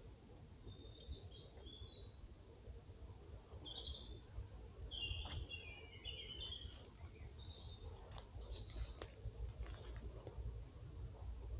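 Small birds chirping and warbling in short, high calls, mostly in the first two-thirds, over a steady low rumble. A few faint clicks come about eight to nine seconds in.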